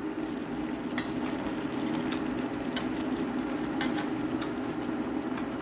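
A pot of kimchi and bean-sprout ramen bubbling steadily on the stove, with a couple of light clicks from utensils against the pot.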